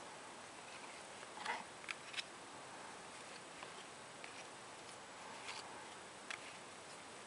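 1975 Topps cardboard baseball cards being leafed through one by one by hands in nitrile gloves: faint clicks and light rustles as each card slides off the stack, with a few sharper ticks scattered through, over a steady hiss.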